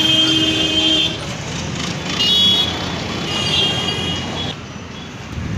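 Street traffic noise with a vehicle horn sounding steadily for about a second at the start, then two shorter high-pitched honks about two and three and a half seconds in.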